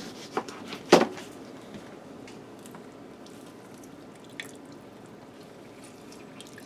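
A sharp knock about a second in, then faint drips and squishes as a lemon is squeezed by hand, its juice falling into a skillet of cream sauce.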